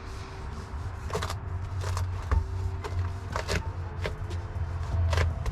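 Scattered short rustles and taps, about half a dozen, of sound-deadening material and tape being handled and pressed into place, over a steady low hum.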